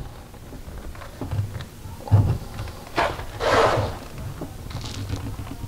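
PVC drain pipe and fitting being pushed together and twisted during cementing: plastic scraping and a few knocks against the wooden framing, with the loudest scrape about three and a half seconds in.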